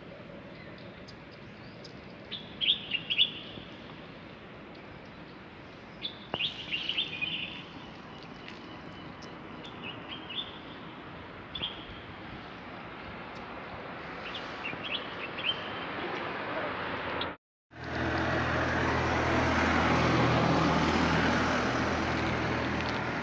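Small birds chirping in short bursts of a few quick chirps, several times, over steady outdoor background noise. Near the end the sound cuts out for a moment, then a louder steady low hum and rumble takes over.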